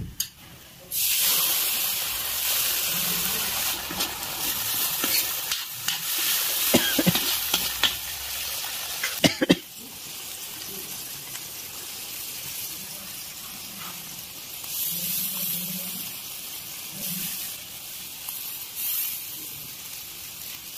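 Onion and spice masala sizzling in hot oil in an iron wok, loud from about a second in, with a few sharp clinks of a metal spatula. The sizzle drops to a softer, steady hiss just before ten seconds in, when liquid is poured in from a steel cup.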